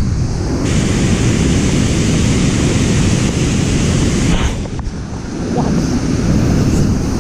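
Loud, steady rush of river water pouring over a low dam spillway and churning through the foamy tailwater, with wind noise on the microphone. It eases briefly a little past halfway.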